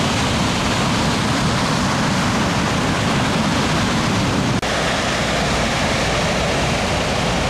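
Steady rushing noise of ocean surf breaking on the shore, with a brief dropout a little past halfway.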